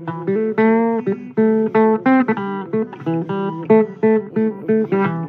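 Blues guitar music: single plucked notes in quick succession, some bent or slid in pitch, over lower held notes.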